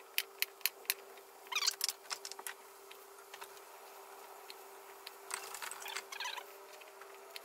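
A kitchen knife clicking against a chopping board in a quick run of short strokes as asparagus ends are trimmed off, then two brief scraping rustles, over a faint steady hum.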